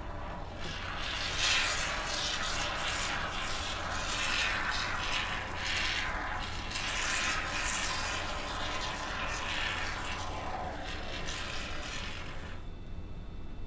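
Can of expanding foam spraying, a hiss that comes in uneven surges as a bead of foam is laid, stopping about a second before the end.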